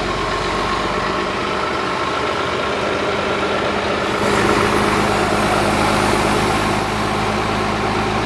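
Heavy engine running steadily, with a hiss joining about four seconds in.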